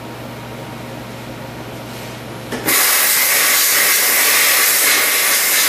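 Compressed air blown through a snowblower's gas tank to clear out debris: a loud, steady hiss that starts suddenly about two and a half seconds in, after a steady low hum.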